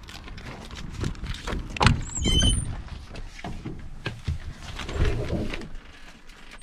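A knock, then a short chirping squeal from the hinge of a 1997 semi truck's cab door being swung open, followed by more knocks and thuds as someone climbs up into the cab.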